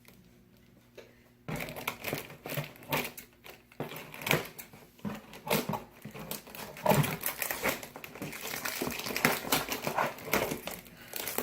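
Cardboard and plastic toy packaging being handled and cut open: irregular crinkling and rustling with scattered clicks, starting about a second and a half in.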